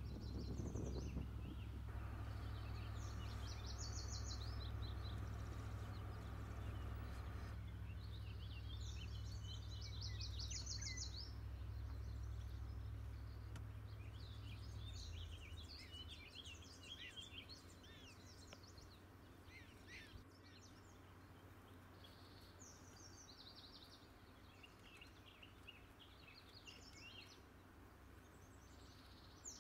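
Songbirds singing outdoors, repeated high trilled phrases coming again and again, over a low steady rumble that fades out about halfway through.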